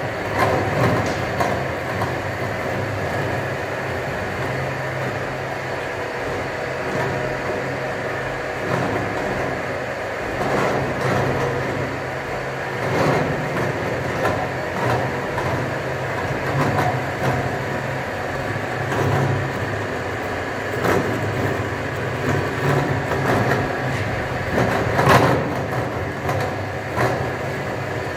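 CNC rack cutting machine running, its cutter milling teeth into a metal rack bar: a steady low machine hum with scattered sharp clicks and clatters of metal chips, the loudest near the end.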